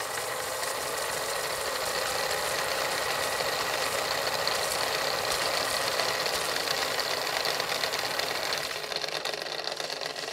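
Steady, dense mechanical-sounding rattle and hiss, a sound effect under an animated logo intro, thinning slightly near the end.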